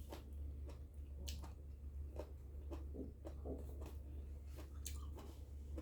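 Close-up chewing of mango: irregular short, wet mouth and bite sounds, over a steady low hum.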